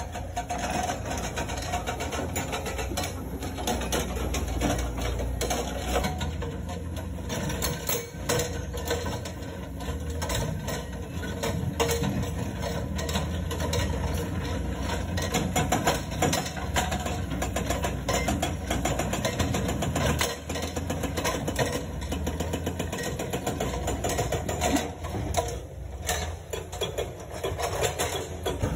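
Komatsu hydraulic breaker on an excavator hammering rock in rapid repeated blows, over the excavator's diesel engine running steadily.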